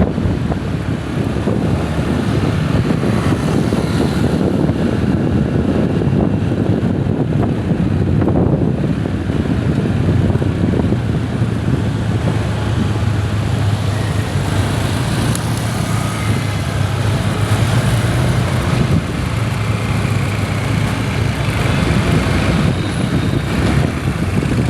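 Steady road-vehicle noise: a continuous low engine and traffic rumble.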